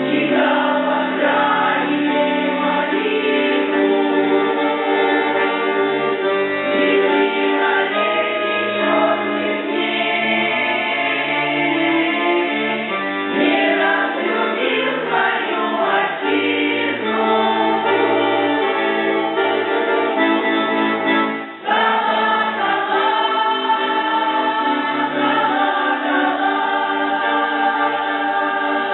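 Amateur Russian folk choir singing in harmony, voices holding long chords. The singing breaks off briefly about three-quarters of the way through, then resumes.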